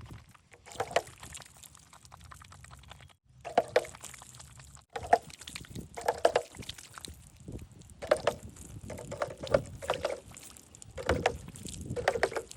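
Water pouring and splashing in short spurts, about once a second, with small knocks of handling between them.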